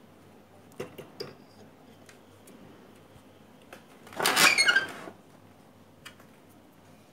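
Two light clicks about a second in, then a short loud burst of rustling, scraping noise about four seconds in, from a hand working right up against the microphone around the CRT set.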